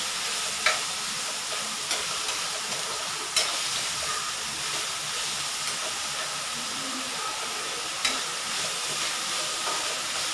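Ground meat sizzling steadily in a hot stainless wok as it is stir-fried. A metal utensil clicks sharply against the pan about three times.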